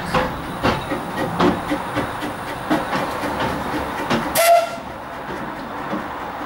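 Narrow-gauge steam locomotive rolling slowly past, with a run of irregular clanks and knocks from its wheels and motion, then one short whistle toot about four and a half seconds in, the loudest sound, before it settles to a quieter steady rumble.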